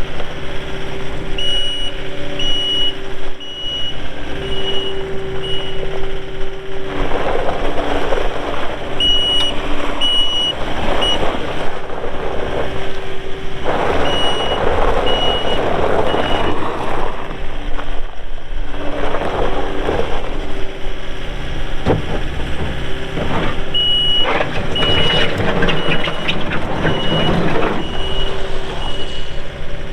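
Kubota SSV75 skid steer's diesel engine running while the machine is worked, growing louder in stretches. Its backup alarm beeps about once a second in several runs as it reverses.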